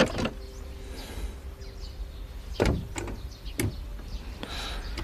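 A pair of frosted-glass casement windows being pushed open: a knock at the start, a louder knock about two and a half seconds in followed by two lighter ones, and a short rush of noise near the end.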